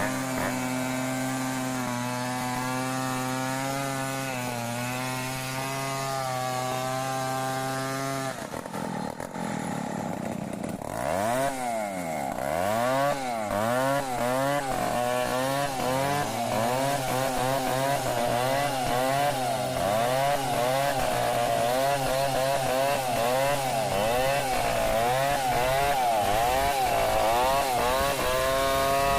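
Stihl 070 two-stroke chainsaw cutting wood. It holds a steady pitch for about eight seconds, drops away briefly, then runs with its pitch rising and falling rapidly over and over as the load on the chain changes.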